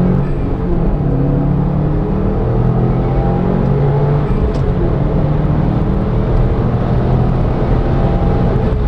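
Subaru WRX STI's flat-four engine running steadily while driving, with road noise, heard from inside the cabin; its exhaust is stock.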